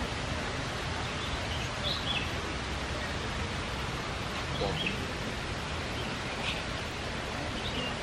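Steady outdoor background hiss with a few short, high bird chirps scattered through it.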